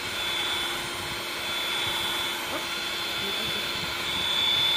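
Handheld immersion blender motor running steadily with a high whine as it blends condensed milk and cream in a bowl, a little louder near the end.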